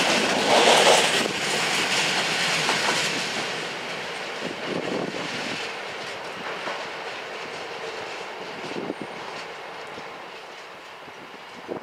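Coal hopper wagons of a freight train rolling past on the rails, wheel clicks over a rushing rumble, fading steadily as the end of the train draws away.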